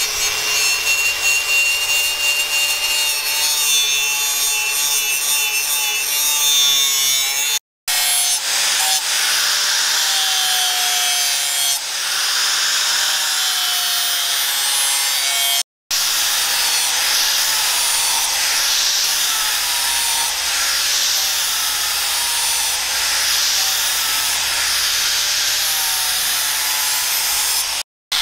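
Angle grinders grinding and sanding a steel knife blade: a loud, continuous grinding hiss with the motor's whine sagging and recovering as the disc is pressed into the steel. The sound cuts out abruptly for a split second about 8 seconds in, again about 16 seconds in, and just before the end.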